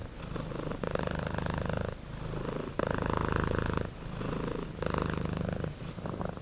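A domestic cat purring steadily, swelling louder and softer about every two seconds.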